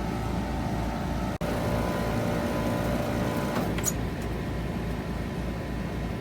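Outdoor unit of a 2022 3-ton Trane XR14 heat pump running steadily, the compressor and condenser fan giving an even hum with a faint steady tone.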